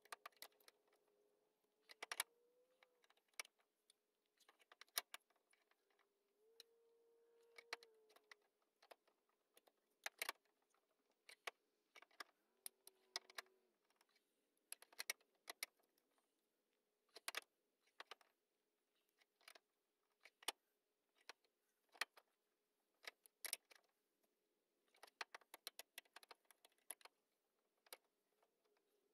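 Long socket ratchet wrench clicking in short runs as it is swung back and forth on a fastener at the car's radiator support.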